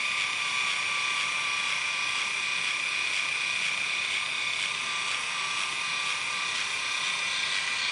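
InStyler rotating hair iron's small electric motor running with a steady whine, turning its barrel while the iron is clamped on a lock of hair to set a curl.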